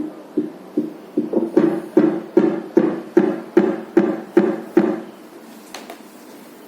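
Fetal Doppler's loudspeaker playing a simulated fetal heartbeat at the 150 beats-per-minute calibration point: even pulsing beats about two and a half a second, getting louder about a second and a half in and stopping about five seconds in.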